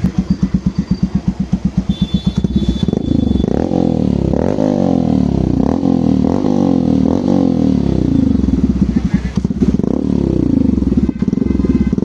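Yamaha FZS V3's single-cylinder engine running through a loud aftermarket exhaust. It idles with an even, pulsing beat, is blipped up and down in several quick revs for a few seconds, then settles back to idle.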